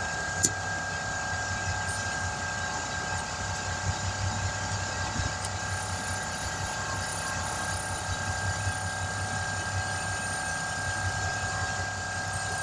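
Portable air compressor running steadily: a low motor hum with a steady whine over it, and a single sharp click about half a second in.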